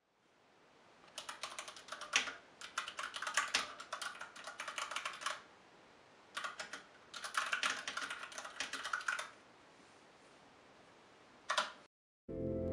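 Typing on a mechanical keyboard: several runs of quick keystrokes with short pauses between them, then a single key press near the end. Music starts just before the end.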